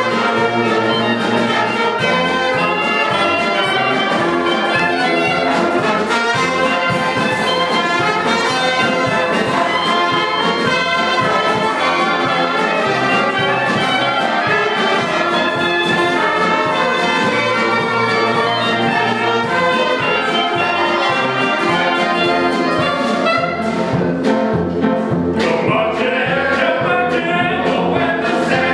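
Small jazz band of trumpet, trombones, clarinet, saxophones and tuba playing an up-tempo jazz tune. Near the end the horns drop out and the players sing together.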